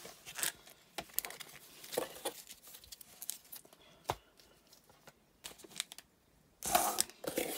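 Trading cards and cardboard handled on a countertop, with soft scrapes and small taps. Near the end comes a louder crinkling rustle as foil-wrapped card packs are picked up.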